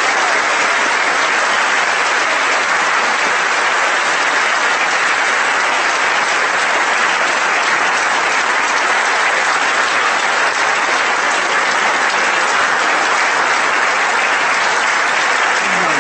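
Audience applauding steadily in a large hall, a dense even patter of many hands clapping.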